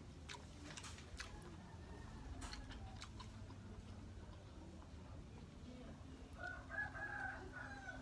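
A rooster crowing once for just under two seconds near the end, the loudest sound here. Earlier, a few scattered mouth clicks and smacks from someone eating.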